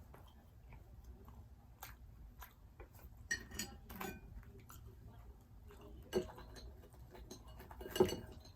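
A person chewing food, with scattered small clicks and a few louder knocks from eating: about a third of the way in, past halfway, and near the end.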